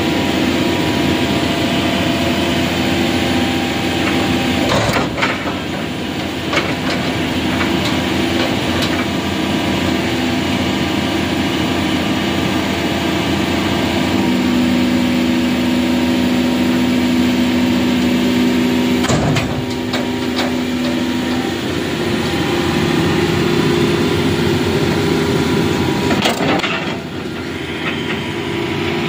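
Hydraulic excavator's diesel engine running steadily while its arm and bucket work against the back of a loaded truck, the engine note shifting a couple of times with the load. A few short knocks and clangs of metal come through, one about five seconds in and others later on.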